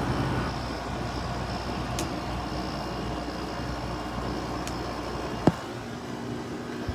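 Haier 5,200 BTU window air conditioner running with its rotary compressor just switched on: a steady low hum with fan noise. A sharp click about five and a half seconds in, after which the deepest part of the hum drops away.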